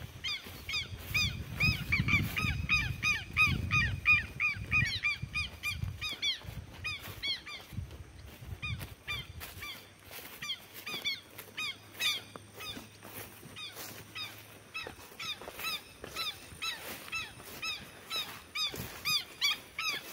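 Birds calling continuously: a rapid, overlapping series of short honking calls, several a second. A low rumble runs under them for roughly the first half.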